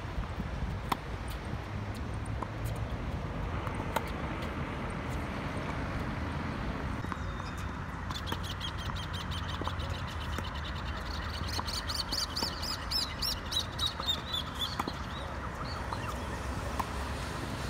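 Tennis rally on an outdoor hard court: sharp racket-on-ball strikes a second or a few apart over a steady low background. About eight seconds in, a bird starts a fast run of high repeated calls that lasts several seconds.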